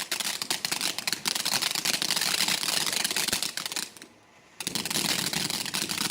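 Ground firework fizzing and crackling with a dense run of rapid pops, cutting out for about half a second around four seconds in before going on.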